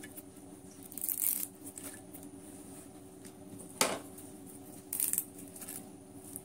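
Curry leaves rustling as they are dropped by hand into a stainless-steel mixer-grinder jar, with a sharp tap against the jar just before four seconds in.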